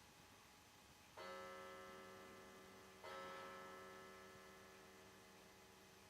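Two struck bell-like chime tones, about two seconds apart, each ringing on and slowly fading, typical of a clock striking.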